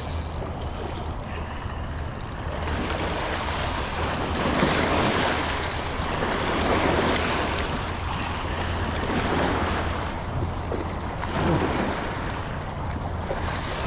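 Wind and water rushing at the shore, swelling and easing every few seconds, with a steady low hum underneath.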